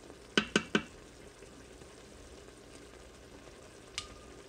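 Tomato and vegetable sauce sizzling and simmering in the stainless inner pot of an Instant Pot on sauté. Three sharp clicks come in quick succession about half a second in, and one more click with a brief ring near the end.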